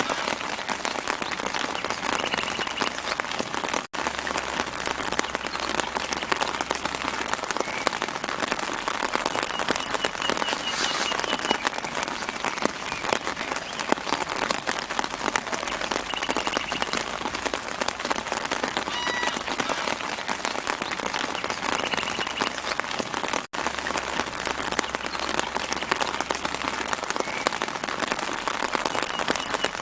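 Steady light rain pattering on leaves and ground, an even hiss of many small drops, with a few short bird chirps in the background. The sound cuts out for an instant twice.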